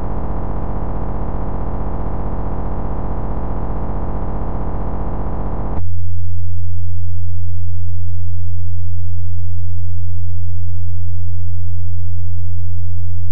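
Synthesized wavetable drone from a Max/MSP patch: a buzzy sawtooth-shaped tone rich in overtones, which switches abruptly about six seconds in to a louder, nearly pure low sine hum as the basis function changes from saw to sine.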